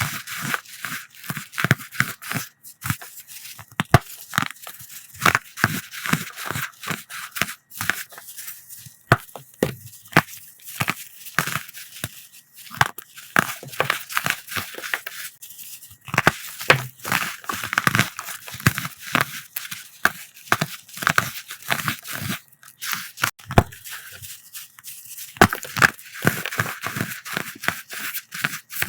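Dyed chalky powder blocks being crushed by hand: a dense run of crunchy, crackly snaps and crumbles with a slight squeak, coming in irregular clusters.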